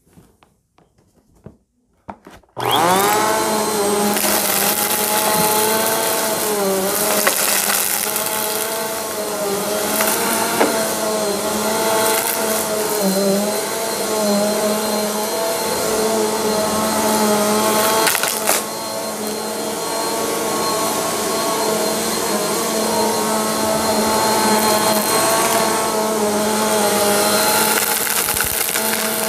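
Bagless upright vacuum cleaner (PowerForce Compact) switched on about two and a half seconds in, its motor whining up to speed, then running steadily on carpet with its pitch wavering as it is pushed back and forth. A few sharp clicks and rattles come through as bits of debris are sucked up.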